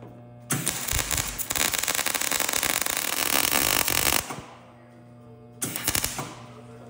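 Wire-feed (MIG) welder arc crackling as a bead is run on a door hinge on thin sheet steel, turned up one setting for more penetration. One run of about three and a half seconds, then a short second burst near the end.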